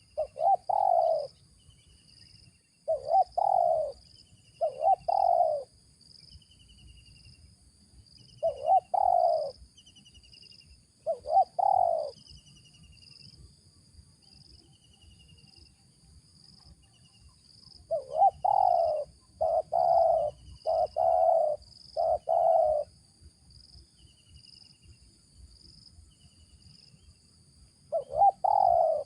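Spotted dove (tekukur) cooing in short repeated phrases, with a quick run of four or five coos a little past the middle. Faint steady high chirping and trilling goes on behind.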